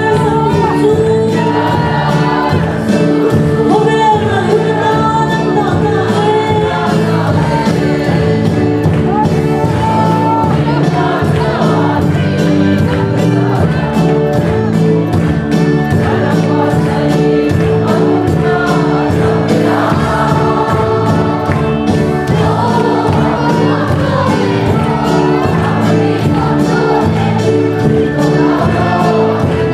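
Church congregation singing a gospel worship song together, with instrumental accompaniment keeping a steady beat.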